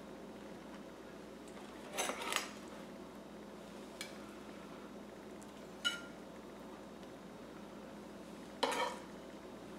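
Kitchen knife and ceramic plate clinking as a breaded sushi roll is cut and the pieces are set on the plate. There is a clatter about two seconds in, a single clink with a brief ring near six seconds, and another clatter near the end, over a low steady hum.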